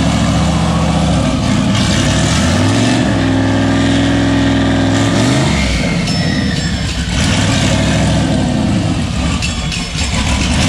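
Turbocharged Corvette V8, running for the first time on a freshly fitted cylinder head, idling. It is revved once about two and a half seconds in, held up for a couple of seconds, then drops back to idle.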